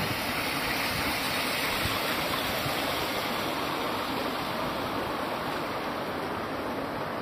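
Water flowing and splashing steadily down the granite channel of the Diana Memorial Fountain, tumbling over its stepped cascade and rippled bed.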